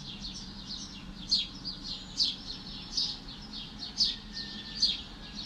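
Small birds chirping: short, high, falling chirps repeated about once a second, over a faint steady low hum.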